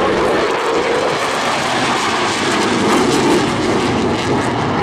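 Loud, steady jet engine noise from the twin Eurojet EJ200 turbofans of an RAF Typhoon FGR4 flying a display pass.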